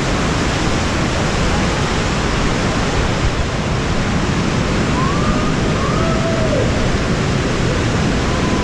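Waterfall and creek rushing in a sandstone slot canyon, a loud, steady wash of falling water.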